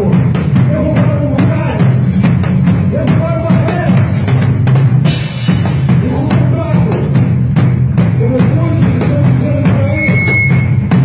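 Live praise band playing an instrumental passage, with the drum kit's kick and snare prominent under melodic instruments and a cymbal crash about halfway through.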